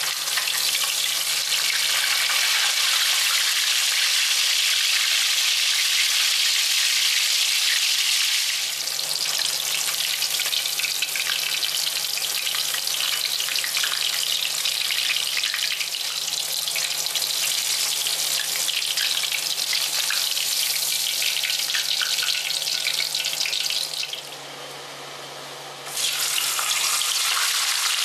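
Cornstarch-coated whole snapper sizzling steadily as it shallow-fries in hot oil in a wok, a dense crackle. The sizzle drops away for about two seconds near the end, then comes back.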